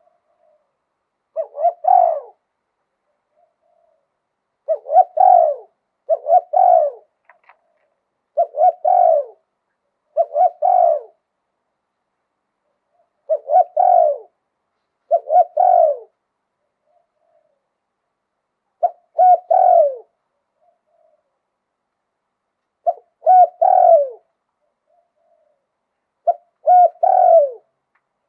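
Spotted dove cooing in the 'liw tan' pattern: about ten short, low phrases of two or three coos each, every phrase ending in a falling note. The phrases come in loose pairs with pauses of a few seconds between them.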